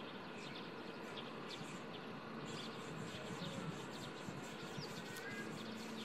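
Faint birds chirping in grassland: many short, high chirps scattered over a steady outdoor hiss, with a brief thin whistle about five seconds in.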